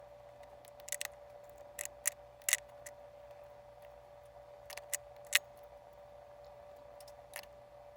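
Scattered light clicks and snips from small craft handwork, about nine irregular ones, over a faint steady hum.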